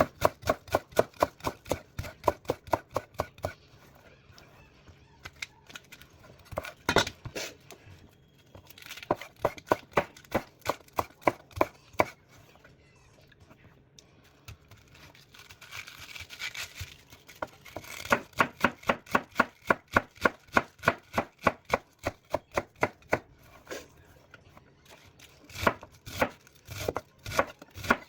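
Knife chopping food on a cutting board in quick, even runs of about four or five strokes a second, pausing briefly between runs.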